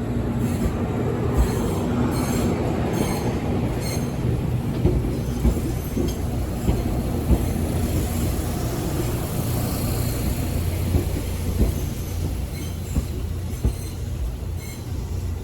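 JR Kyushu 787 series electric train pulling out and rolling past with a steady heavy rumble. Sharp wheel clicks come now and then, and a hiss swells and fades around the middle.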